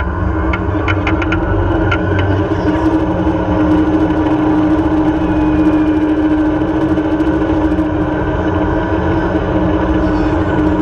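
Zipline trolley rolling down its steel cable, a steady whine that grows stronger through the middle, over heavy wind buffeting on the microphone. A run of rapid clicks comes in the first couple of seconds.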